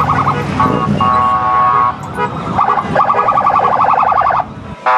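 Vehicle horns honking in repeated bursts of a steady pitch, two long blasts after shorter toots, over the low rumble of slow-moving motorcycle engines. The rumble drops away abruptly near the end.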